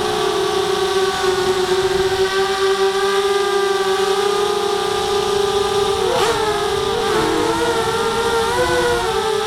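ZMR250 250-class FPV quadcopter's brushless motors and propellers whining, heard from the craft's onboard camera. The motors run steadily at one pitch, then about six seconds in their pitches spread apart and wobble up and down for a few seconds as the quad manoeuvres in rate mode, before settling again.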